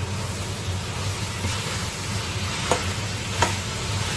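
Green beans and potato chunks sizzling in hot oil in a pot as they are stir-fried, with a spatula clicking against the pot a couple of times in the second half.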